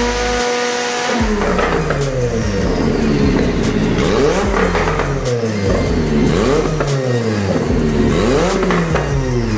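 Turbocharged Mazda MX5 engine holding a steady note for about a second, then revving up and down over and over, roughly once a second, with occasional sharp cracks.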